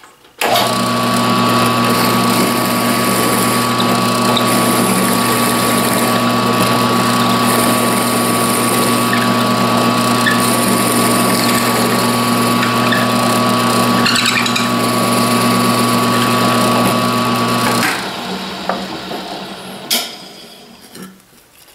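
Drill press running steadily with a 5/16-inch bit, drilling a centre hole through a wooden dowel. Near the end the motor is switched off and winds down.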